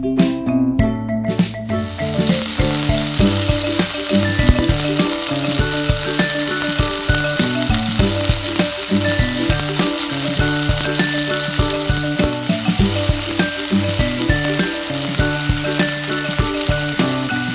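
Steaks sizzling as they fry in hot oil in a stainless steel pan; the sizzle starts about two seconds in, when the meat goes into the pan, and then holds steady.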